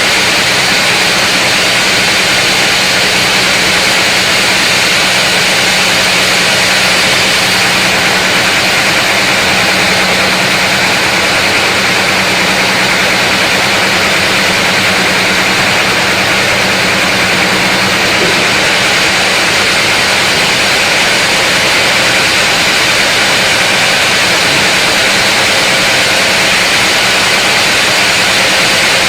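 Large sawmill saw cutting through a big mahogany log: a steady, loud hissing rasp of the blade in the wood over the even hum of the saw's motor.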